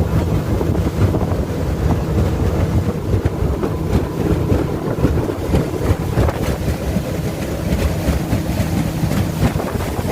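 Boat engine running steadily with a constant low hum, wind buffeting the microphone.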